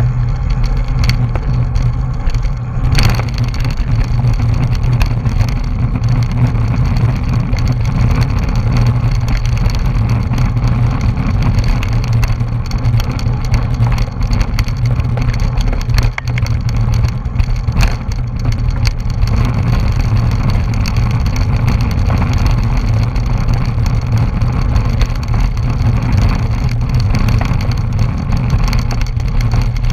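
Wind rushing over the microphone of a camera mounted on a road bike riding at race speed: a loud, steady low rumble, with one sharp click about three seconds in.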